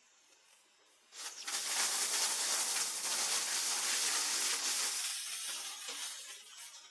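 Drum wood chipper shredding a piece of wood: a sudden dense, high-pitched crackling rush starts about a second in, holds for about four seconds, then fades out.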